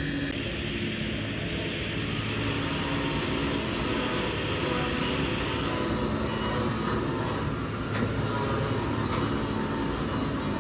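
Steady machinery noise: a low hum under a hiss that changes character about six seconds in.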